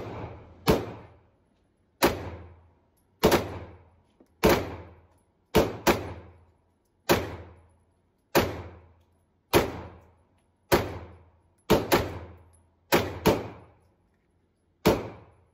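Glock 48 9mm pistol fired about fifteen times, roughly one shot a second with a few quick pairs, each report ringing off in an indoor range. It is emptying a Shield Arms S15 15-round magazine.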